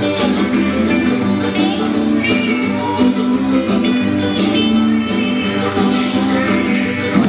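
Live band playing, with several acoustic guitars strummed.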